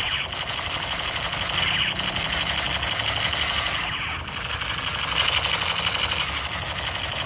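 Battery-powered toy assault rifle firing its electronic machine-gun sound effect: a fast, continuous rattle of shots, with a brief dip about four seconds in.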